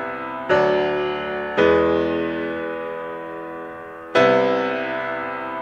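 Slow, gentle piano music: sustained chords struck three times and each left to ring and fade.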